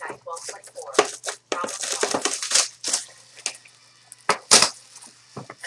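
Clear plastic packaging crinkling and tearing in irregular bursts as a trading-card box is unwrapped, with sharp crackles about a second in and again near four and a half seconds.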